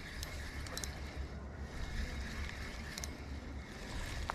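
Spinning reel being cranked to reel in a hooked fish: a steady soft whir with a few faint clicks, over a low rumble.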